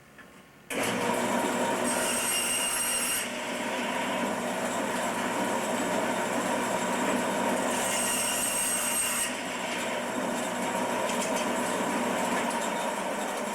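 Electric power saw switched on about a second in and running steadily while cutting wooden dowels to length, with a brighter, hissier stretch twice, around two seconds in and again around eight seconds in.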